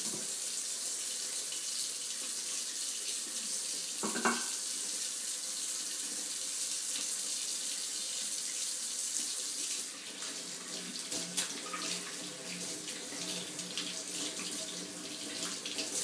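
Tap water running steadily into a sink as oil-paint brushes are rinsed under it, the flow getting a little quieter about ten seconds in. A brief, louder sound stands out about four seconds in.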